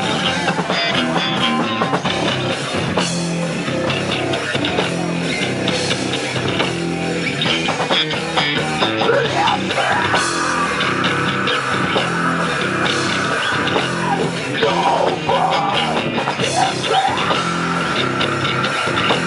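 Heavy metal band playing live: distorted electric guitars and drum kit. In the second half a lead line bends its notes and holds a high note.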